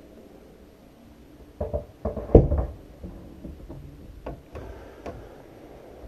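IKEA shelf unit being shifted and pushed into place against the wall: a cluster of knocks and thuds, the loudest about two and a half seconds in, followed by a couple of lighter taps.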